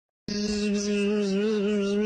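One long held note, chanted or hummed on a steady low pitch, starting abruptly about a quarter second in and wavering slightly.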